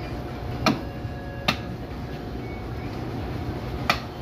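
Three sharp knocks of a butcher's cleaver chopping pork on a block, two close together near the start and one near the end, over steady market background noise.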